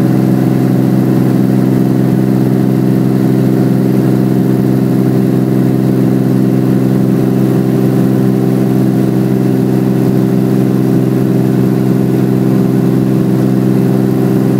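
Helicopter engine and rotor running steadily, heard from inside the cabin: a loud, constant drone with several steady low tones.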